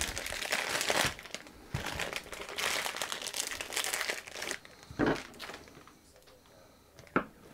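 Clear plastic sausage packaging crinkling and crackling as it is pulled open and the sausages are drawn out. It is followed by two short knocks, about five seconds in and again near the end.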